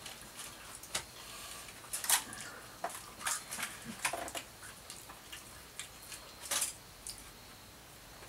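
Aluminium foil burger wrappers crinkling as they are handled, in short scattered crackles, with louder bursts about two seconds in and again about six and a half seconds in.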